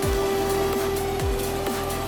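Electronic background music with deep, quickly falling bass-drum hits under a held tone.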